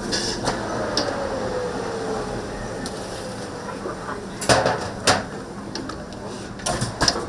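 Sharp knocks and clatter of kitchen tools and pans over steady background noise, the loudest two strikes about halfway through and two more near the end.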